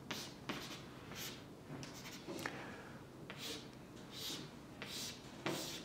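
Chalk drawing on a blackboard: a series of short, faint scratchy strokes, about one or two a second.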